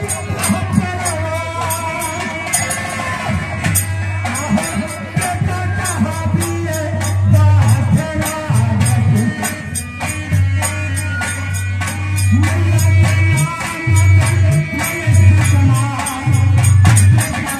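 Live folk stage music through a loud PA: a man singing over a fast, steady percussion beat of sharp ticks and heavy drum strokes.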